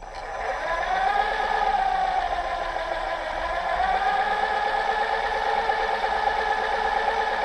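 Electric drive motors of a camera rover whining steadily as it drives, building up over the first second, the pitch dipping slightly midway and rising again.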